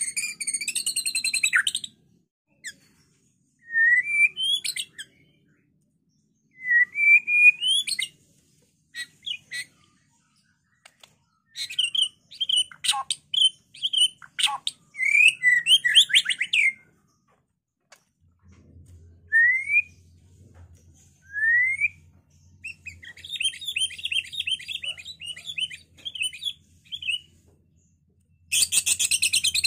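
White-rumped shama singing in phrases with short pauses between them: clear whistled notes, upward-sliding whistles and quick chattering runs, with a dense burst of song near the end.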